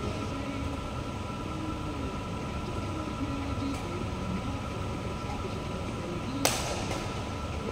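Steady low rumble and hum of the badminton hall. About six and a half seconds in, a badminton racket strikes the shuttlecock with one sharp crack.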